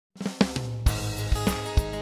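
Intro music: a drum beat with sharp hits over held, sustained notes.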